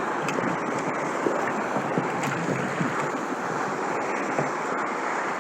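Steady wash of sea water around a kayak, with wind buffeting the microphone and a few faint small clicks and taps.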